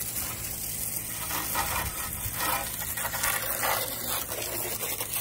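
Garden hose spray hissing and spattering on the mower's underside and the wet paving stones, swelling and easing as the stream is moved around.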